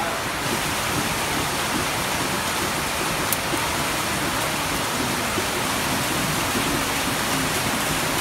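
Pork and fish sizzling on a wire grill over a glowing charcoal brazier: a steady, dense hiss, with one sharp click about three seconds in.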